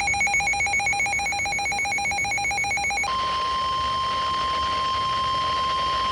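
Weather alert radio's alarm sounding a rapidly pulsing multi-tone beep, which switches about three seconds in to the single steady 1050 Hz NOAA Weather Radio warning alarm tone that comes before a warning message.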